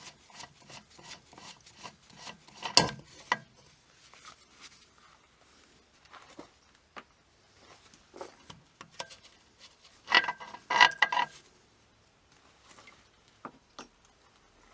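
Scattered metal clicks, scrapes and knocks as an outboard motor's propeller is worked off its shaft, its nut already loosened. There is a sharp knock about three seconds in, and a cluster of clinks with a brief metallic ring around ten to eleven seconds.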